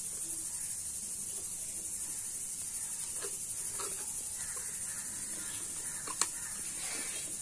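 Steady high-pitched drone of insects, with faint handling sounds and one sharp click about six seconds in as a plastic lid is pressed onto a plastic jar.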